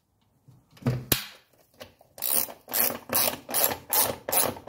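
Ratchet wrench on an extension turning the centre nut of the air cleaner lid. It clicks in quick, even strokes, about three a second, from about two seconds in. A couple of knocks come about a second in.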